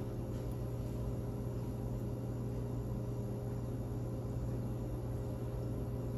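Steady low hum of running commercial-kitchen equipment, with a few faint constant tones above it and a light hiss.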